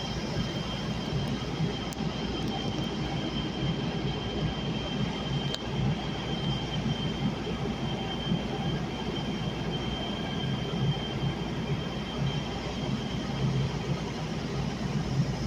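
Kinkisharyo P3010 light-rail car heard from inside while running at speed: a steady rumble of wheels on rail and running noise, with a thin, steady high whine.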